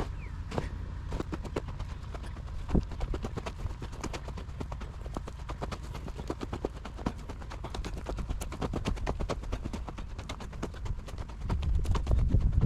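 Footsteps of a person walking over farm-field soil: a steady, regular run of steps. A low rumble lies under the steps and grows louder near the end.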